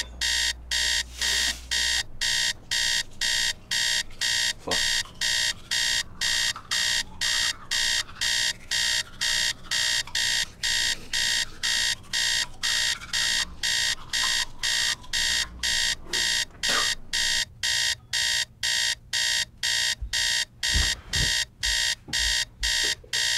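Alarm clock beeping in a fast, even, high-pitched rhythm, about two beeps a second, without a break. A few faint knocks sound under it.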